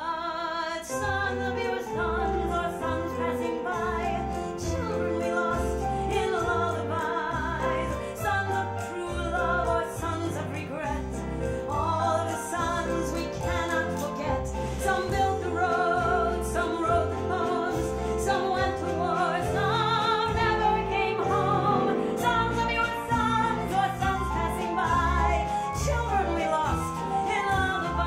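Live music: a melody carried with heavy vibrato over accompaniment with a regular pulsing bass line.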